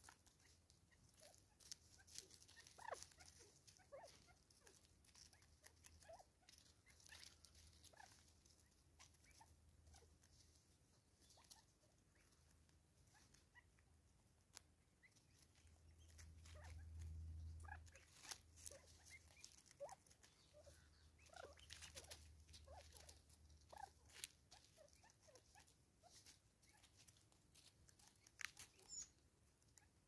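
Faint, irregular clicks and taps of a southern red-billed hornbill's bill picking birdseed off a wooden stump, with a low rumble swelling briefly around the middle.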